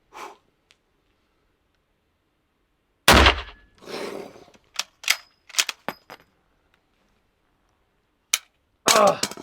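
A single shot from a Mosin Nagant bolt-action rifle rechambered in .500 S&W Magnum, fired with a full-power 53.5-grain load, about three seconds in: one very loud crack with a short echo. A handful of sharp metallic clicks and clinks follow a couple of seconds later, and the shooter's voice comes in near the end.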